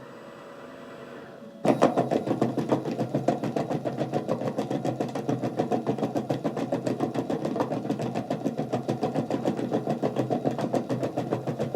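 Dice rattling fast in the automatic dice shakers of a live Bac Bo table: a dense, even clatter of rapid ticks that starts suddenly about two seconds in and keeps going, the dice being shaken before the player and banker totals are read. Before it starts there is a faint rising swell.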